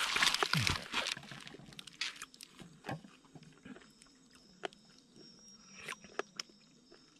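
A person tasting food and chewing: a short noisy rush in about the first second, then scattered soft clicks and mouth sounds.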